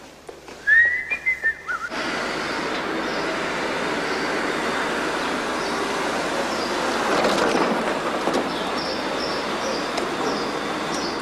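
A short rising whistle about a second in, then steady street traffic noise from about two seconds, with faint high chirps repeating near the end.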